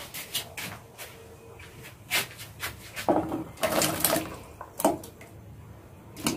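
Kitchenware being handled while cooking: a series of short knocks and clatters, thickening into a busier stretch of clatter about three seconds in.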